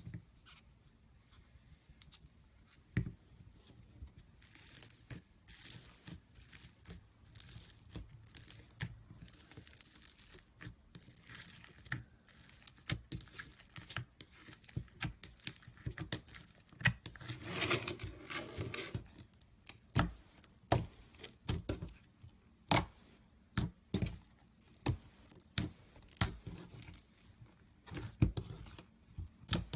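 Slime being squeezed and poked by hand: scattered sticky clicks and pops, with a longer run of crackling about two-thirds of the way through.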